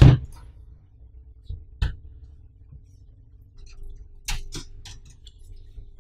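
Hands handling the inside of an Alcatroz Futura Black N2000 metal PC case and its power supply cables: a sharp knock at the start, another about two seconds in, and a quick run of clicks and taps around four to five seconds.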